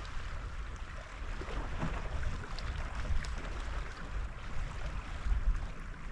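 Outdoor wind noise: a fluctuating low rumble of wind on the microphone over a steady hiss, with a few faint ticks.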